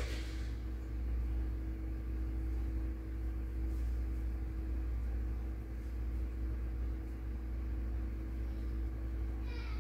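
A steady low mechanical hum with a constant tone. A short, high, falling pitched sound comes near the end.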